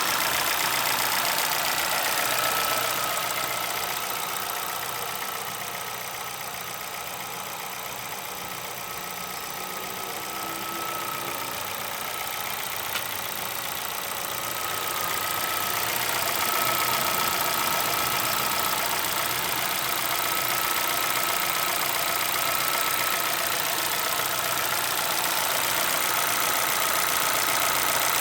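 Chevrolet Celta VHCE engine running steadily with a steady high whine and an unusual mechanical noise that the owner cannot identify. It gets quieter for several seconds in the middle, then louder again.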